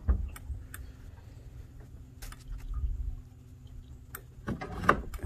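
A steady low hum with scattered light clicks and taps, and a few louder knocks near the end.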